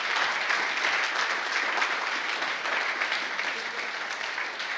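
Audience applauding: dense, steady clapping from a roomful of people that eases slightly toward the end.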